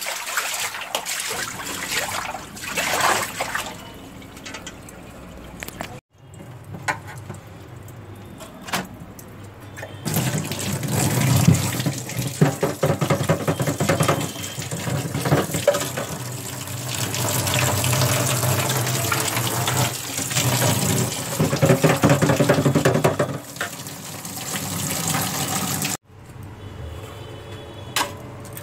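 Tap water running and splashing into a stainless steel kitchen sink as the sink is scrubbed with a brush, with short clattering knocks; the sound breaks off briefly twice.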